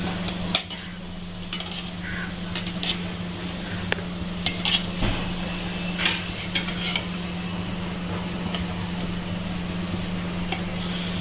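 Gulab jamun dough balls deep-frying in hot oil with a steady sizzle, while a perforated metal skimmer stirs and turns them, scraping and clicking against the nonstick pot every second or so. A steady low hum runs underneath.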